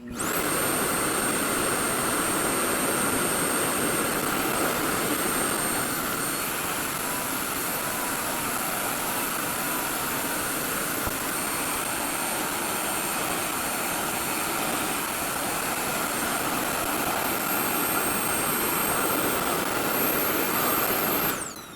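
RevAir reverse-air hair dryer running on its highest setting: a steady rush of air with a thin, high-pitched motor whine. It starts abruptly and cuts off near the end.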